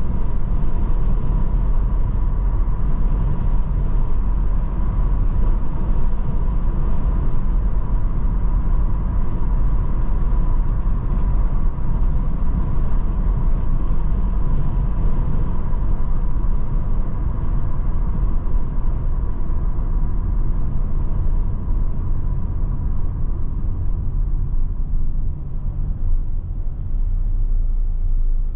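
Road noise heard from inside a moving car: a steady low rumble of engine and tyres on tarmac, with a faint steady whine that fades out about halfway. The rumble eases a little near the end as the car slows in traffic.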